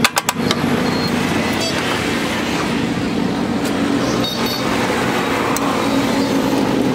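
Two or three rapid metal knocks at the very start, then a motor running steadily with an even drone.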